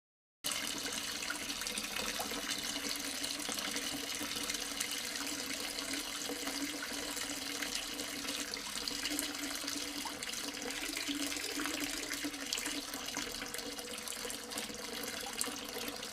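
Water running steadily over a small tabletop waterfall fountain, trickling and splashing. It starts abruptly about half a second in and cuts off sharply at the end.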